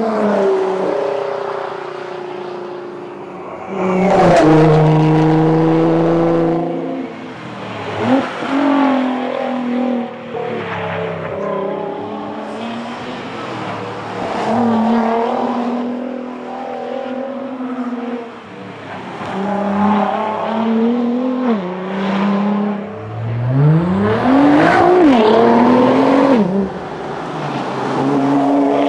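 Nissan R35 GT-R's twin-turbo V6 driven hard. The revs climb in repeated pulls and drop back at each gear change or lift, with the longest, loudest run of acceleration near the end.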